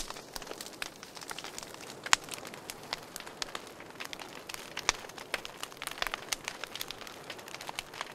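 Wood campfire crackling: irregular sharp snaps and pops from the burning logs over a soft hiss, with one louder pop about two seconds in.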